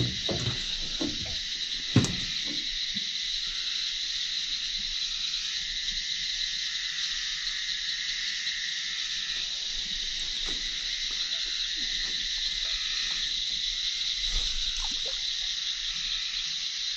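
Steady high-pitched night chorus of insects and frogs. Over it come a few low knocks and handling noises from the boat in the first seconds, the loudest a sharp knock about two seconds in.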